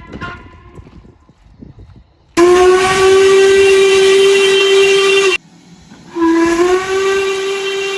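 Steam locomotive whistle sounding two blasts: a long steady one of about three seconds, then after a short gap a second that starts slightly low and rises to pitch.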